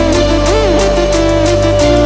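Electronic background music with a steady beat, sustained bass notes and a gliding synth melody.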